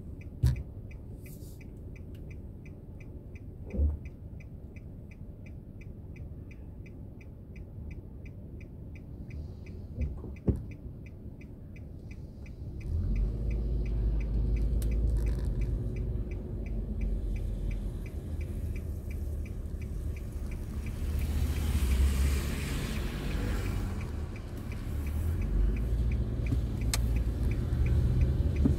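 A car's turn-signal indicator ticking steadily inside the cabin while the car waits with a low engine and road rumble. A few dull thumps come in the first half. About 13 s in the car pulls away and the rumble grows much louder, and a passing rush of noise peaks about 22 s in.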